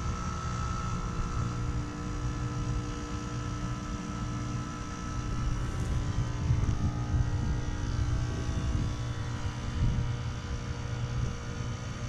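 2006 3-ton Heil heat pump outdoor unit running: a steady mechanical hum with a few steady tones over a low rumble. The rumble gets louder and uneven in the second half.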